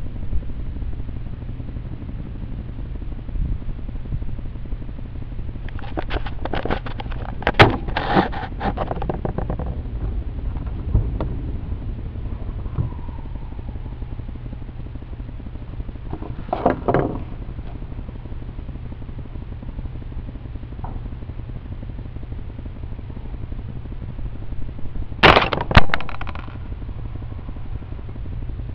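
Single shots from a Marlin 922M .22 Magnum semi-automatic rifle: sharp cracks spaced several seconds apart, two of them about half a second apart near the end.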